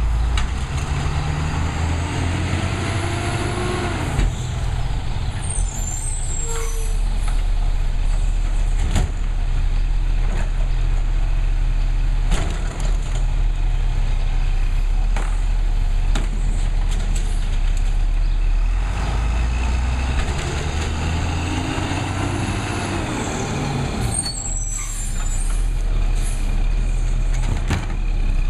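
Garbage truck's engine running with a steady low drone while its automated side-loading arm lifts and empties a wheeled recycling cart. The engine pitch rises and falls twice, and several sharp knocks come from the cart and arm banging against the truck.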